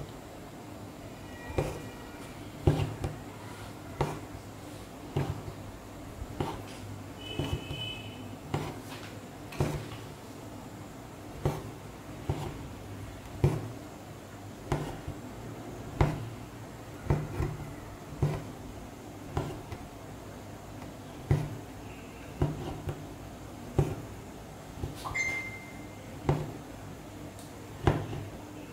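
Hand embroidery stitching: an embroidery needle tapping through the fabric and the thread being drawn after it, a short tap about once a second as each stitch is made.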